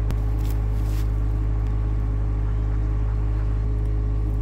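An engine running steadily with an even, low drone that does not rise or fall, and a couple of faint clicks in the first second.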